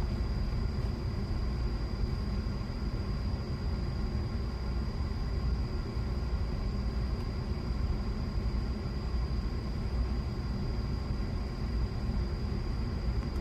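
Steady low rumble with a faint, thin, high-pitched tone running through it, unchanging throughout.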